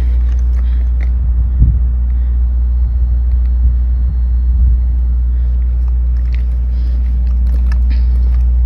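A steady low rumble, with a few faint clicks and taps over it.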